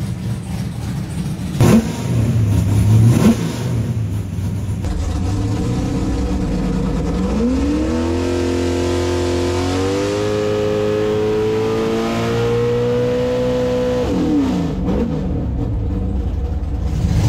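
565 cubic inch big-block Chevrolet V8, naturally aspirated on electronic fuel injection, idling with two quick throttle blips. It then makes a dyno pull, revs climbing in steps for about seven seconds before dropping off quickly near the end.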